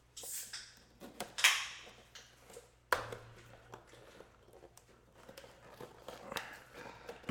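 Sealed box being torn open by hand: a few short rips and scrapes, the loudest about a second and a half in, a sharp snap about three seconds in, then light crinkling and clicks.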